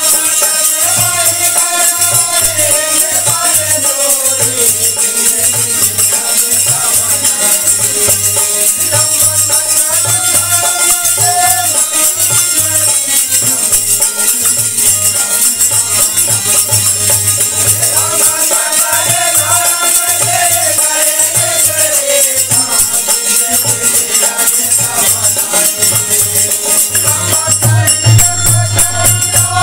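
Devotional group singing (bhajan) to the goddess Sharda, accompanied by a harmonium, with the continuous metallic jingling of hand cymbals running under it. The sung lines come in long phrases that rise and fall in pitch.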